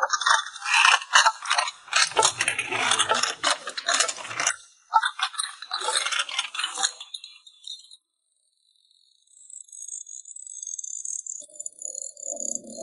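Rapid, dense rattling and clinking of small hard objects for about eight seconds, stopping abruptly, followed by fainter high ringing tones.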